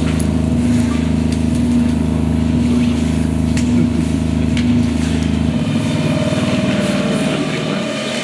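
Low droning ambient soundtrack made of several steady tones. About five and a half seconds in, the deepest bass drops out and a higher steady tone comes in.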